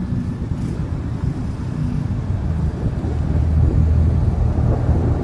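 Low, steady rumble of a running vehicle engine, growing a little louder about halfway through.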